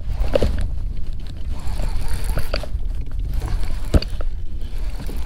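Wind buffeting the microphone as a steady low rumble, over the rustle of a jacket and the handling of a baitcasting rod and reel. A sharp knock comes about four seconds in as the rod is swung.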